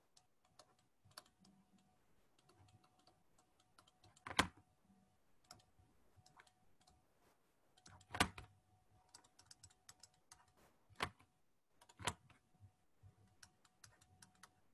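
Scattered faint clicks and taps from writing on a tablet with a stylus, with four louder taps spread through.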